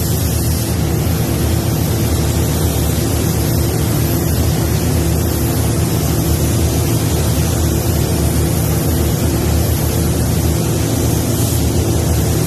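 Paint booth running while clear coat is sprayed: a steady hiss of compressed air and spray over the low, even hum of the booth's ventilation fans, with no breaks.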